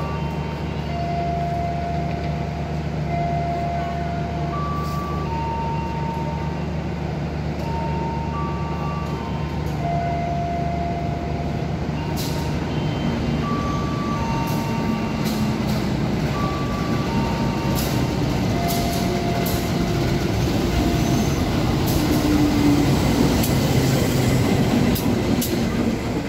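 A diesel-hauled passenger train approaches and runs through the station: a steady low engine hum at first, then from about halfway the coaches roll past with rapid, irregular wheel clicks over the rail joints, growing louder towards the end.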